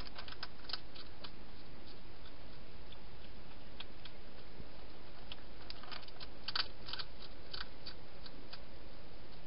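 Wild hedgehog crunching dry food inside a plastic feeding station: sharp irregular clicks, a short run in the first second and a denser run from about the middle to near the end, over a steady hiss.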